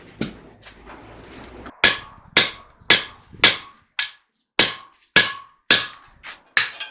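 Hammer blows on metal, about two a second and evenly paced, each strike ringing briefly; the blows begin about two seconds in, after a quieter stretch of low shop noise.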